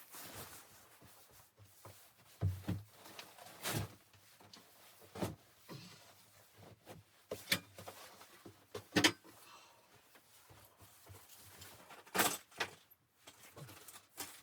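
Irregular knocks and clatter of objects being handled, with about a dozen sharp knocks spread unevenly over a faint background hiss.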